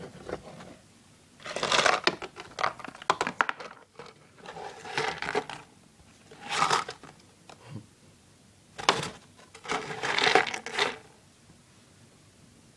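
Young pet rats scrabbling about in a box: five stretches of rapid scratching and clicking, each up to about a second and a half long, with quiet between them.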